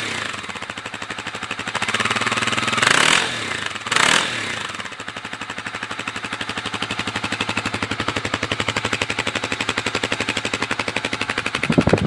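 Kawasaki KLX250's single-cylinder four-stroke engine, standing still, being revved with the throttle. The revs rise and fall about two to three seconds in, there is a short blip about four seconds in, and then it idles with a steady, even beat.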